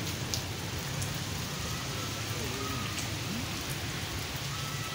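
Steady rain falling on a tarpaulin canopy overhead, an even hiss with no rhythm, with low voices faintly in the background.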